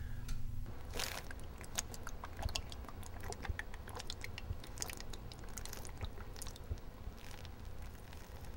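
A man gulping liquid straight from a small plastic bottle: a long run of small wet swallowing clicks and gulps, irregular and fairly quiet.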